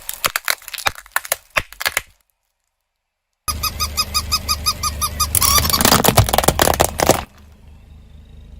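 A quick run of sharp cracks and pops, then after a short break a rapid series of squeaks, about four or five a second, over a low rumble, dissolving into dense crackling before it dies down to a low hum.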